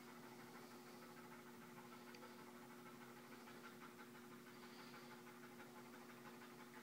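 Faint dog panting, a soft rhythmic huffing, over a steady low electrical hum.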